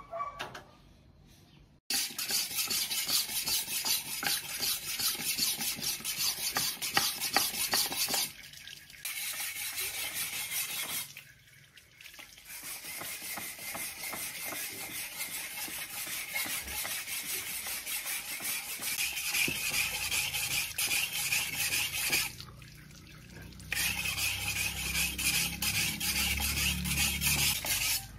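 Chopped banana plant being stirred and mixed by hand, a dense scraping, rustling noise that starts suddenly and drops out briefly three times.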